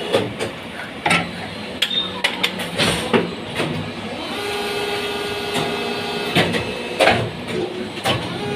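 Workshop machinery humming steadily, with irregular sharp clicks and knocks.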